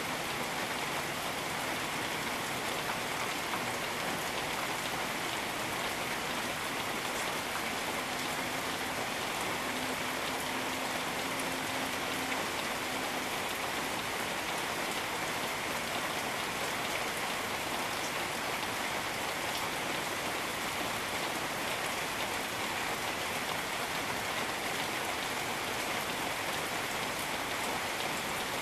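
Steady rain falling in tropical forest, an even hiss of drops on leaves and surfaces that neither builds nor eases.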